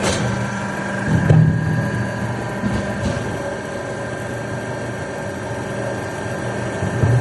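4-foot rotary veneer peeling lathe running with a steady machine hum and a thin high whine, with a louder knock about a second in and another near the end.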